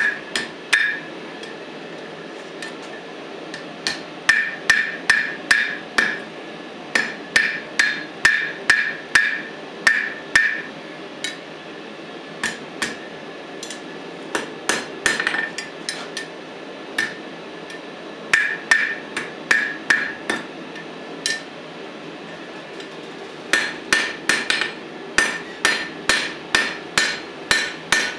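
Hand hammer striking red-hot steel on the horn of an anvil, forging the tongs, in runs of quick blows about two a second with short pauses between runs. Many blows carry a metallic ring from the anvil. A steady low background noise runs underneath.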